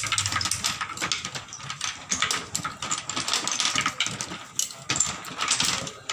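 Rings clattering and clicking against the metal arms of a rod stand as they are slid on in quick succession, a rapid irregular run of small knocks.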